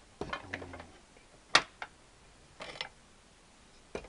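Facing stones clicking and knocking as they are handled: a few irregular sharp clicks, one loud one about a second and a half in, with a brief rustle near three seconds.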